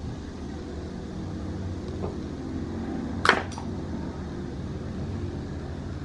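A cat gnawing a silvervine (matatabi) stick: one sharp snap about three seconds in, with a fainter one just after, over a steady low hum.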